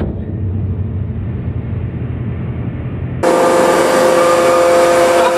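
500-ton hydraulic press running: a low rumble, then about three seconds in a sudden switch to a louder, steady whine made up of several pitches as the ram lifts off the crushed books.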